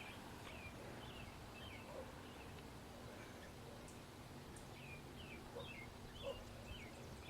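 Faint, repeated short chirps of a small songbird, about two a second with a brief lull partway through.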